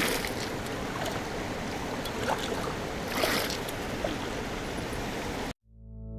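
Mountain creek rushing over rocks, with a few short splashes and gurgles as a metal cup is dipped in to fill it with water. The water sound cuts off abruptly near the end, and soft ambient synth music fades in.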